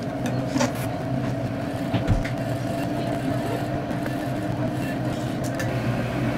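Handheld battery milk frother whirring steadily while it mixes chocolate syrup into cold milk in a glass, with a few light knocks against the glass.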